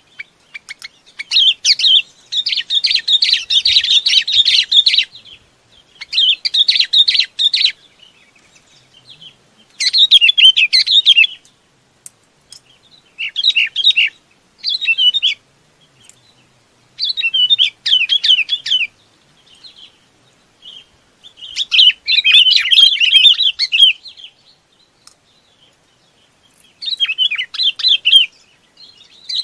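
Bulbul (Vietnamese 'bông lau') calling to its flock: repeated bouts of fast, chattering, warbling notes, each lasting one to four seconds, with short pauses between.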